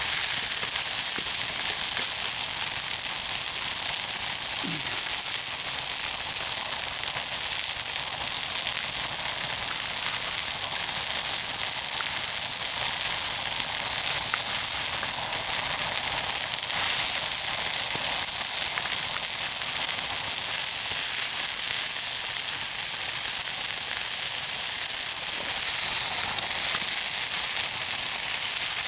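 Burgers frying on a wood-burning camp stove: a steady sizzle.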